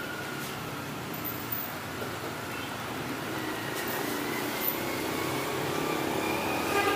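Street traffic with a vehicle engine running, growing slowly louder toward the end.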